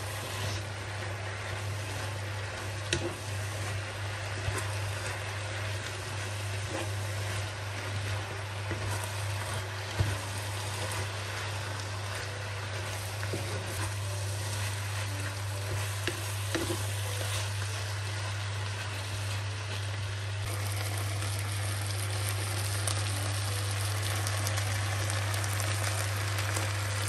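Chow mein noodles with chicken and vegetables sizzling steadily in a nonstick frying pan, stirred with a wooden spatula, with a few sharp knocks of the spatula against the pan. A steady low hum runs underneath.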